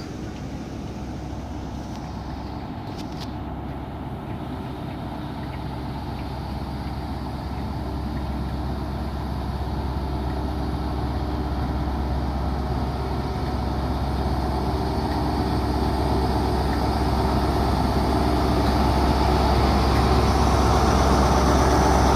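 Diesel engine of a class 43 HST power car (MTU 16V4000) running steadily at the platform, its hum growing gradually louder throughout.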